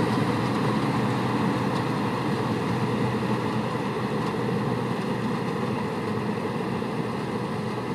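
Combine harvester running steadily as it moves through a paddy field, its engine and machinery noise growing slowly fainter as it pulls away.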